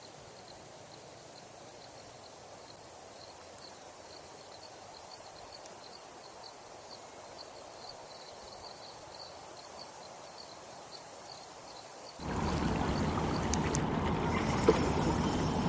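Faint outdoor ambience with a soft, regular high ticking, then about twelve seconds in an abrupt switch to a much louder, steady rushing noise like wind or surf.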